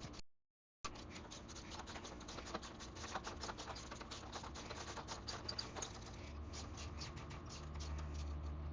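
Faint, rapid, irregular scratching and ticking of hand tools working a seized metal fastener, with a low steady hum joining in past the middle.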